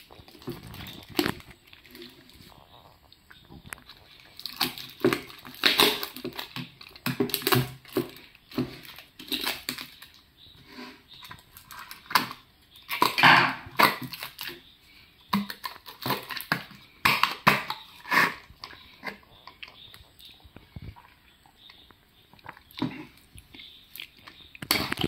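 Scissors snipping through the plastic tape seal on a takeaway drink cup, with crinkling and rustling of the packaging in irregular bursts.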